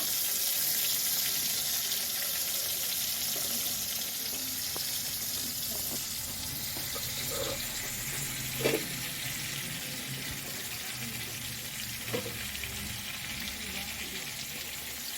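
Marinated tuna pieces frying in hot coconut oil: a steady sizzle that eases off slightly over time, with two short louder sounds, one about halfway and one near the end.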